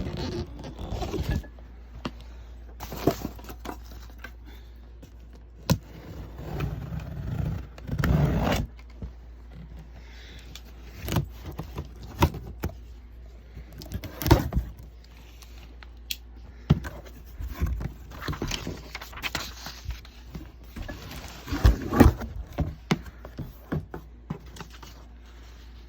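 Hands unpacking parts from boxes: irregular scraping and rustling of cardboard and plastic packaging, with scattered sharp knocks and clicks, the busiest stretches about eight, fourteen and twenty-two seconds in.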